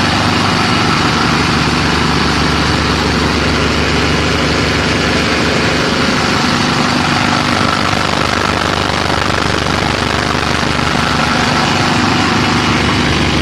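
Shale shaker running steadily: the even drone of its electric vibrator motor shaking the screen deck, with a wash of noise from drilling mud flowing across the screens.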